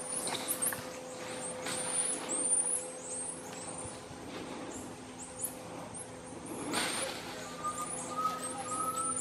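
Bolivian squirrel monkeys giving many short, very high-pitched chirps and peeps as the troop moves through the treetops. A brief rush of shaking leaves and branches comes about seven seconds in, and a thin steady whistle sounds near the end.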